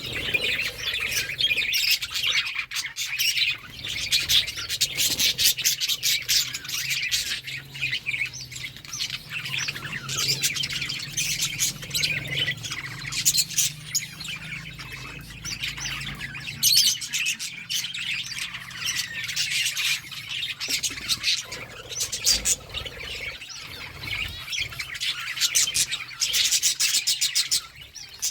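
Budgerigars chirping and chattering, many rapid high-pitched chirps overlapping in a continuous stream.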